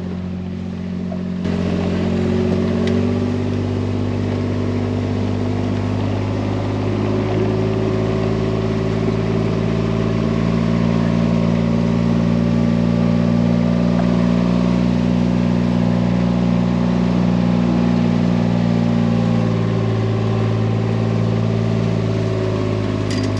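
Vehicle engine running steadily under load while driving along a woods track. It picks up slightly about a second and a half in, then holds an even pitch.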